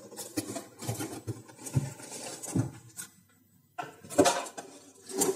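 A cardboard fry-pan carton being opened by hand: its end flap is pulled and folded back, giving irregular scraping and rubbing of cardboard, with a short pause a little past the middle and a louder burst near the end.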